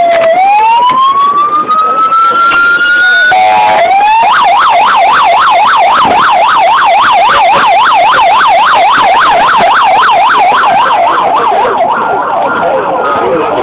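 Loud emergency-vehicle siren. It begins as a slow wail rising in pitch, then about four seconds in switches to a fast yelp sweeping up and down about four times a second, which fades near the end.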